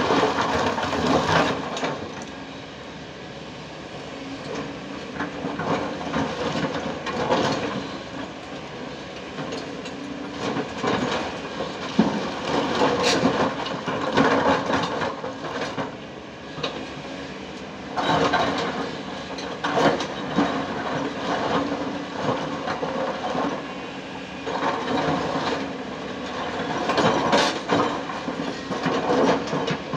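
Kobelco 220 hydraulic excavator digging into broken rock: the bucket scrapes and grinds through the stones and rocks clatter and knock together in repeated louder bouts every few seconds, over the steady running of its diesel engine.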